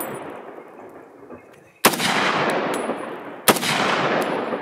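Two hunting-rifle shots about a second and a half apart, each a sharp crack followed by a long echo that dies away, with the echo of an earlier shot fading at the start. They are shots at fallow deer, ending in a double kill.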